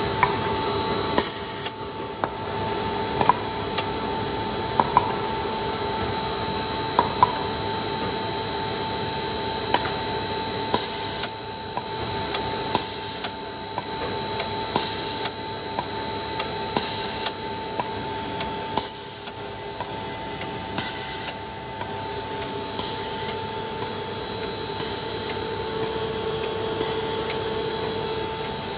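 Plastic-pellet dryer and blender running: a steady machine hum with a high whine. Short hissing bursts come about every two seconds from about ten seconds in, with a few sharp clicks earlier on.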